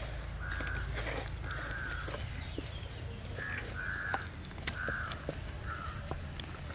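Crows cawing in a series of short, harsh calls about a second apart, over a steady low rumble, with a few sharp clicks around the middle.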